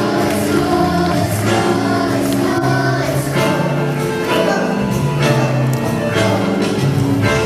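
A choir singing a song with instrumental accompaniment, the voices holding long notes over a steady bass line.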